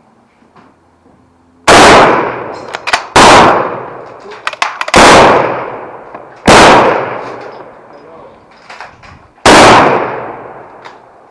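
Five rifle shots from service rifles on a firing line, spaced one to three seconds apart, each with a long echoing tail. Small clicks sound between the shots.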